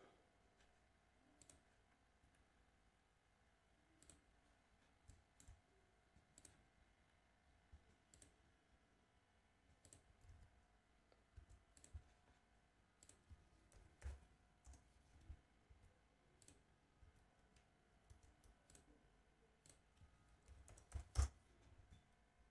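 Faint, irregular clicks of a computer mouse, one every second or so, the loudest a quick pair near the end, over a faint steady hum.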